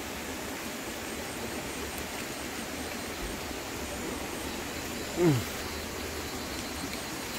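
Steady hiss of outdoor background noise among forest foliage, with one short sound that slides down in pitch about five seconds in.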